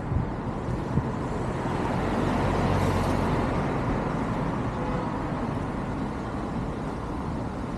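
City road traffic, with a vehicle passing close by that swells loudest about three seconds in and then fades. A light knock sounds about a second in.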